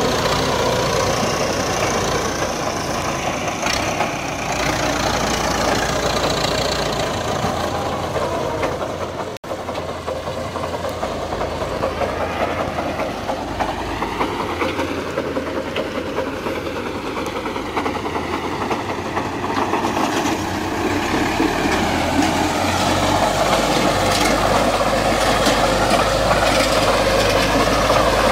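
IMT 577 tractor's diesel engine running steadily under load while driving a MASINO 2.5 m power harrow that churns through the soil. The sound cuts out for an instant about nine seconds in.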